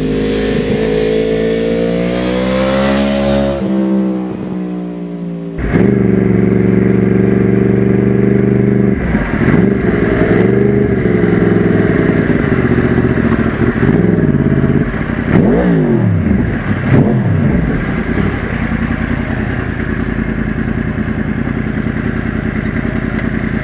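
A 2009 Yamaha R1's crossplane inline-four, fitted with an aftermarket exhaust, under way on the road. It pulls up through the revs at the start, breaks off about four seconds in, then revs rise and fall several times before settling into a steady cruise near the end.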